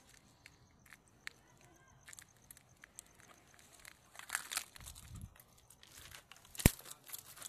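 Quiet rustling and crackling of dry grass and stems being pushed through and handled, with scattered small clicks and one sharp knock near the end.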